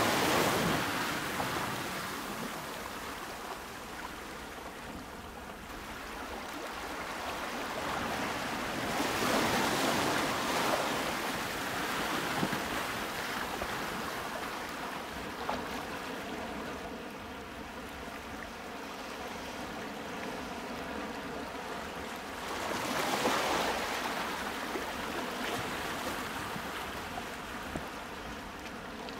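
Ocean surf washing in and out, a steady rushing that swells three times, slowly rising and falling.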